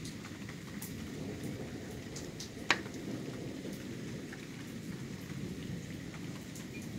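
Steady rain with a low rumble of thunder and scattered drips. A single sharp tick about two and a half seconds in is the loudest sound.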